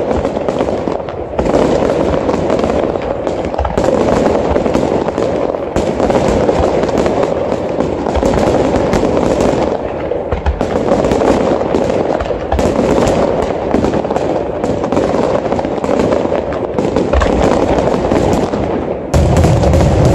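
Aerial fireworks barrage: many shells bursting and crackling at once in a dense, continuous rattle of bangs. About a second before the end, heavier, deeper bangs come in as a new volley of shells bursts.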